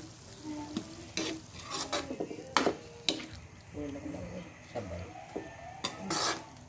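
A metal spatula scraping and knocking against a metal wok while a wet sauté of banana heart and pork is stirred, with a light sizzle underneath. The scrapes come irregularly, the sharpest about two and a half and three seconds in.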